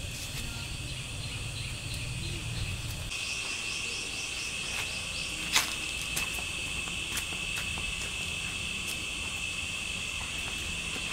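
Insects trilling steadily in a high, even chorus. A single sharp click stands out about halfway through.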